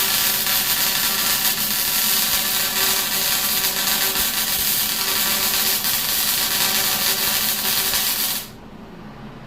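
A power tool runs steadily with a constant motor whine under a dense rubbing noise, then is switched off and cuts out abruptly about eight and a half seconds in.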